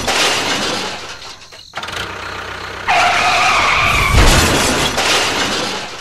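Crash sound effects for a toy train derailing: a noisy crash that fades over the first second and a half. About three seconds in comes a one-second screech like skidding tyres, then another burst of crash noise that dies away.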